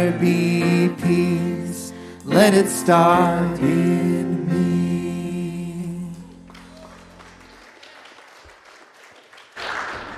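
Worship band and singers ending a song: voices sing the closing line over keyboard and guitar, and the last chord rings and fades out about six to seven seconds in. Then the hall is quiet except for a short burst of noise near the end.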